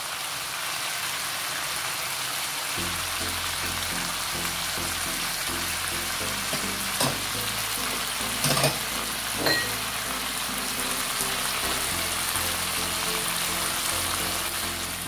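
Chicken pieces frying in oil in a nonstick pan, sizzling with a steady hiss, with three light knocks near the middle.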